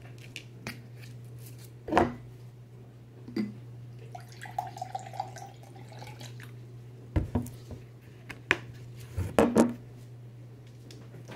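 Plastic bottle of lime juice being handled, with knocks and clicks from the cap and from the bottle and glass being moved; the loudest knock is about two seconds in and a cluster comes near the end. Lime juice is poured into a glass about four to six seconds in. A steady low hum runs underneath.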